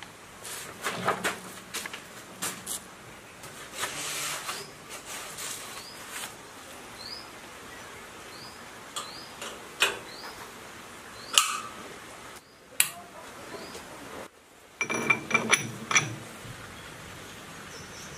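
Scattered metal clicks, knocks and clinks of hand work on a small bench lathe: handwheels turned and parts of the headstock and chuck handled. A burst of ringing metal clinks comes near the end.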